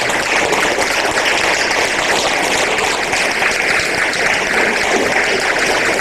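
An audience applauding steadily, a dense even clatter of many hands clapping.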